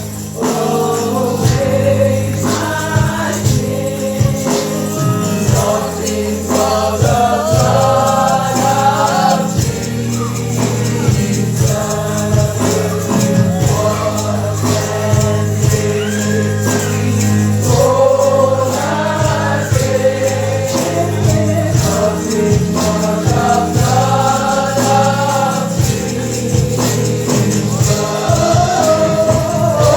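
Gospel praise music: a group of voices singing a melody over steady bass notes and a rhythmic percussion beat.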